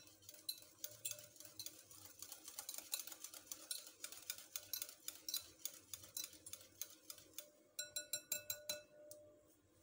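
Wire whisk beating cream and sugar in a glass bowl: quick, faint, irregular ticks of the wires against the glass. Near the end a short run of brighter, ringing clinks.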